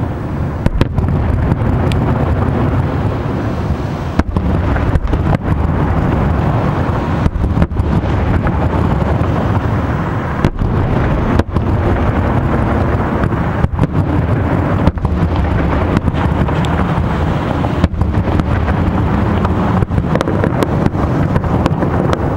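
Fireworks display: aerial shells bursting with irregular booms and cracks over a continuous low rumble.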